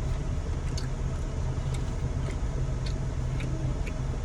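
Car's engine running, heard from inside the cabin as a steady low rumble, with a few faint light clicks over it.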